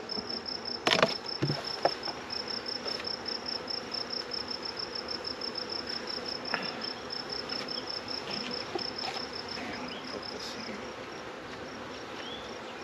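Honeybees of a disturbed swarm buzzing in a steady low hum around the opened hive, with a cricket chirping in an even rapid pulse over it. A sharp knock sounds about a second in.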